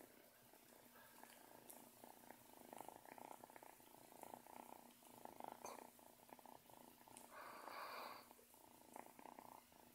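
Kitten purring faintly and steadily while licking a dog's face. A louder breathy sound lasts about a second, about seven seconds in.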